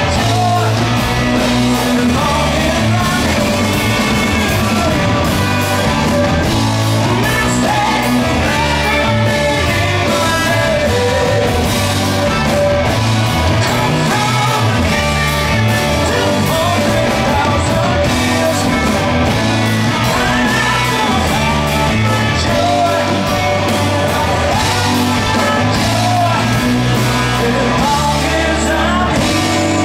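Live rock band playing loud and steady, with a male singer's voice over electric guitar, heard from within the audience.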